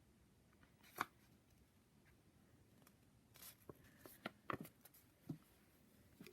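Near silence with a few faint clicks and rustles: a single sharp click about a second in, then a cluster of short clicks and light rustling from about three to five seconds in.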